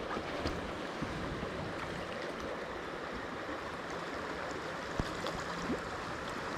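Shallow trout stream's current flowing over the streambed, a steady rushing of water, with one short knock about five seconds in.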